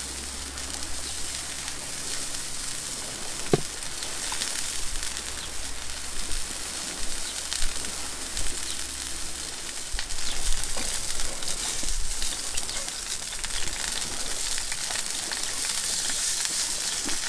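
Steady hiss of rain on a tarp shelter mixed with hot oil sizzling in a frying pan on a portable gas stove, with one sharp click about three and a half seconds in. Pork chops go into the pan in the second half, and the sizzling grows louder from about ten seconds in.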